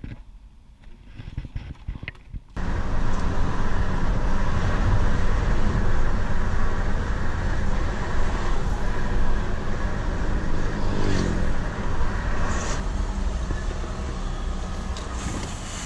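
Steady engine and road noise heard from inside an Audi's cabin while driving. It starts abruptly about two and a half seconds in, after a quiet stretch with a few faint clicks, and eases a little toward the end.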